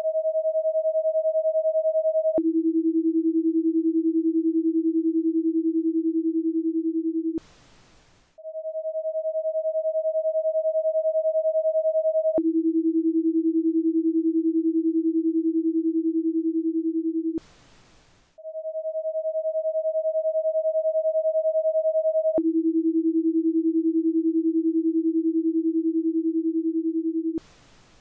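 Paced-breathing guide tones in a ten-second cycle: a higher steady tone held about four seconds to cue inhaling, a lower steady tone held about five seconds to cue the longer exhale, then about a second of pause, the breathing space. The pattern repeats about three times, opening partway through a high tone.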